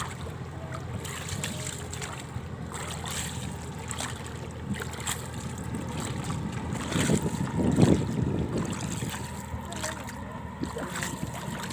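Water splashing and lapping against a rowing boat's hull as it moves, with wind noise on the microphone; the splashing gets louder about seven to eight seconds in.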